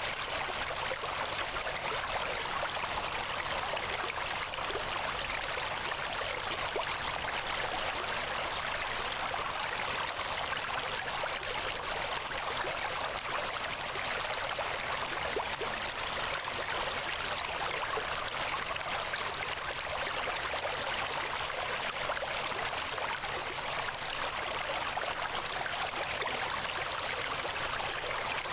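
Steady rushing noise like a flowing stream, running evenly without breaks or changes.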